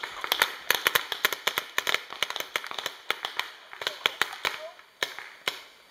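Paintball markers firing: a rapid, irregular string of sharp pops, thickest in the first three seconds and thinning out after.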